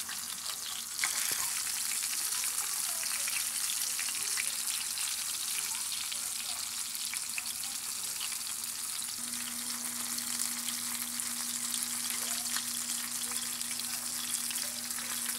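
Cornmeal-and-flour-breaded fish fillets frying in hot oil in a square cast iron pan: a steady sizzle with dense, fine crackling. A steady low hum joins about nine seconds in.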